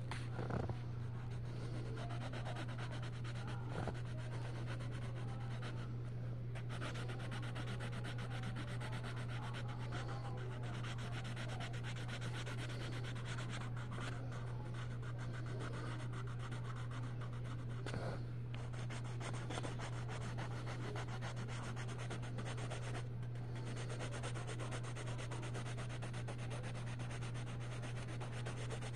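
Coloured pencil shading on colouring-book paper: a continuous rubbing scratch of the pencil lead across the page, over a steady low hum.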